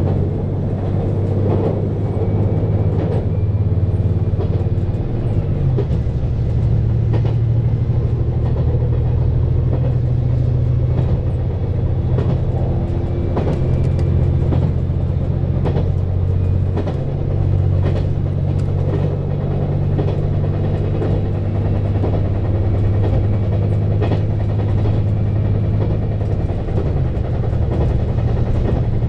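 KiHa 187 series diesel railcar running at speed: a steady low diesel engine drone whose note shifts a few times, with the wheels clicking sharply over rail joints.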